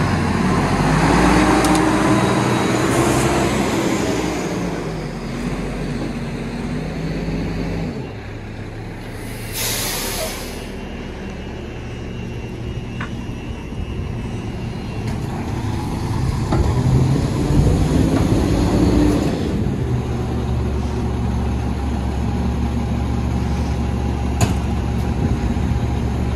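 Rear-loader garbage truck's diesel engine running, its pitch rising and falling as it pulls along, with a short hiss of air brakes about ten seconds in.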